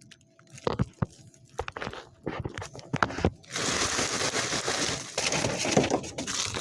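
A few knocks and clicks, then from about halfway in a long stretch of plastic snack packaging crinkling and rustling as it is handled.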